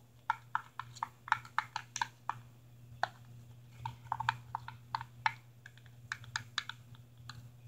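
Thin metal stirring stick clicking and tapping against a plastic cup as glue and shaving cream are stirred for slime. The light clicks are irregular, several a second.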